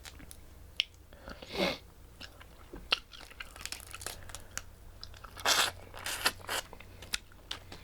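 Close-up eating sounds of a seafood boil: wet chewing, biting and smacking, with scattered sharp clicks and crackles and a few short louder wet bursts around 1.5, 5.5 and 6.3 seconds in.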